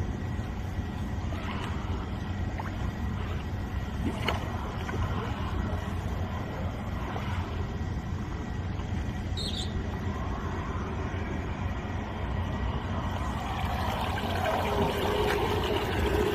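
High-pressure sewer jetter's engine-driven pump running with a steady drone, with water rushing that swells louder in the last two seconds or so.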